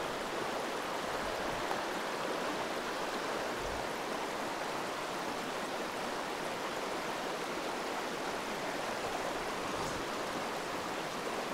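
Small mountain headwater stream running over rocks and shallow riffles: a steady, even rush of water.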